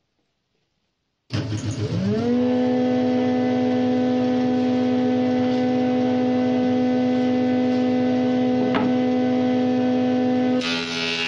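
Woodworking jointer (surface planer) switched on: its motor and cutterhead spin up with a rising whine over about a second, then run with a steady hum. Near the end a hissing rasp joins in and the tone sags slightly as a board is fed across the cutterhead.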